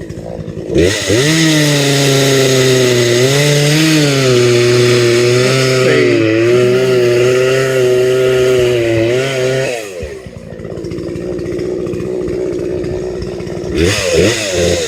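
Chainsaw engine idling, then revved to high speed about a second in and held there for about nine seconds, its pitch dipping and recovering as it cuts into tree wood, before dropping back to idle and revving up again near the end.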